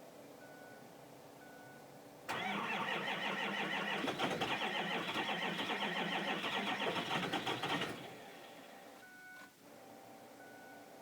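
2005 Ford 6.0-litre Powerstroke diesel cranking hard on the starter with a fast, even pulsing for about five and a half seconds, starting a couple of seconds in and then stopping. This is a hard cold start because the block heater was off when its breaker blew. A high beep repeats about once a second before and after the cranking.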